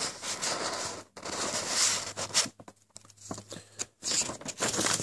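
Paper instruction leaflet rustling and crinkling as its pages are handled and turned, with irregular crackles and short pauses.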